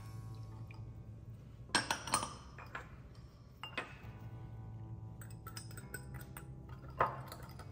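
Wire whisk and small ceramic dish clinking against a glass mixing bowl a few times while a sauce is mixed, over soft background music.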